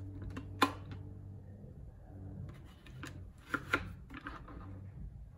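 Plastic Tefal electric kettle being handled: its lid clicks shut about half a second in, and two more sharp plastic clicks follow close together later, with lighter handling rustle between.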